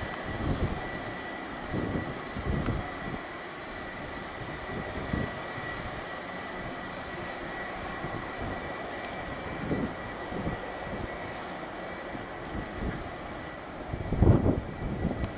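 Boeing 757-300's twin jet engines running at idle as the airliner taxis: a steady jet whine with a high tone held throughout. Gusts of wind buffet the microphone now and then, strongest near the end.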